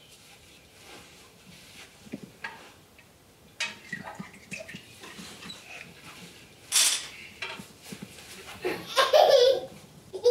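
A ladle knocking and clinking in a metal cooking pot, with a sharp clatter about two thirds of the way in, then a small child's loud squeal of laughter near the end.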